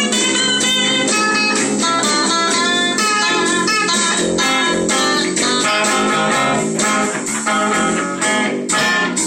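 Electric guitars playing a blues-rock jam, with quick runs of picked notes over a steady backing.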